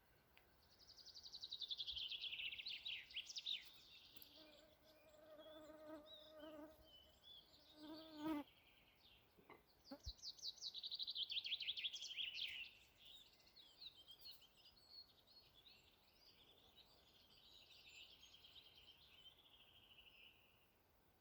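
A songbird singing bouts of rapid trills, three phrases a few seconds apart, amid faint outdoor ambience. A faint steady low hum runs for a couple of seconds in the middle, followed by a short knock.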